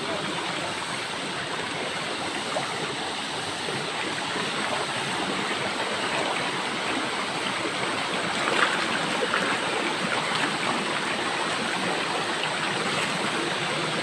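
Shallow rocky river rushing over stones in small rapids, a steady rush of water with a moment of louder splashing a little past halfway.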